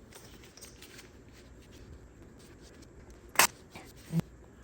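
Plastic wiring-harness connector being pushed home on an engine, with faint handling noise, then a sharp click about three and a half seconds in and a second, softer click just under a second later as it snaps into place.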